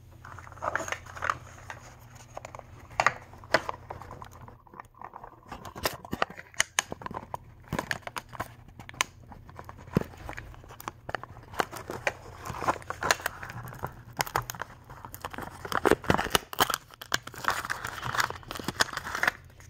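Irregular crinkling, tearing and clicking as a Mini Brands capsule ball is unwrapped: its printed plastic wrappers are peeled and torn and the plastic shell is handled.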